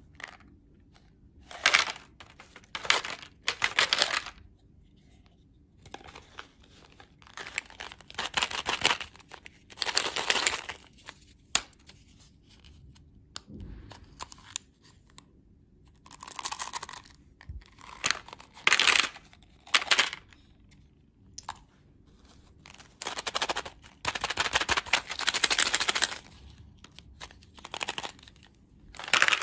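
Candy packaging being torn open and crinkled by hand, in a series of short rustling tears with brief pauses between them.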